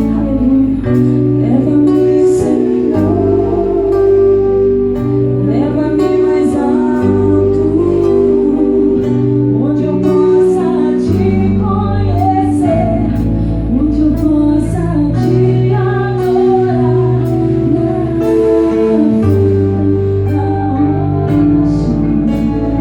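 Gospel band playing a praise song, with a voice singing over sustained bass and chord notes and a steady beat of drum and cymbal hits.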